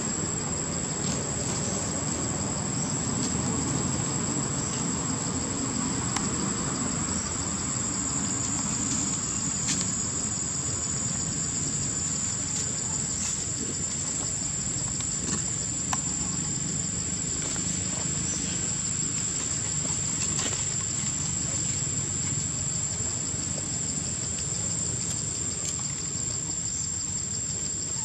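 Steady, high-pitched insect drone over a low background rumble, with a few faint clicks.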